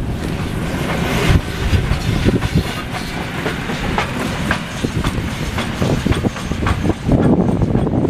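German class 52 steam locomotive 52-8038 and its short passenger train passing close by, wheels and running gear clattering over the rail joints with irregular knocks and a heavy low rumble. The clatter grows louder near the end as the coaches go past.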